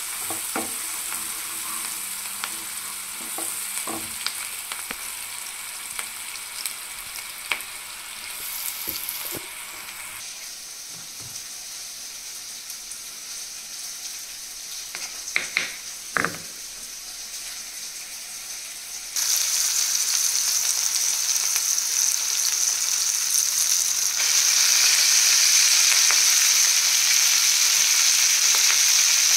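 Food sizzling in hot oil in a kadai as it is stirred, with scattered sharp clicks of the spoon against the pan. The sizzle gets abruptly louder about two-thirds of the way in and again near the end.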